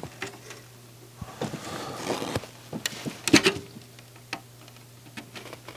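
Small scattered clicks and the rustle of a flat flex ribbon cable being handled and pushed into its connector on a CD player's circuit board, with a short cluster of louder clicks about three and a half seconds in.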